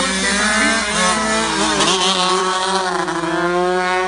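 135cc racing motorcycle engines revving hard through a corner. Their pitch dips about two seconds in, then climbs steadily as the riders accelerate out.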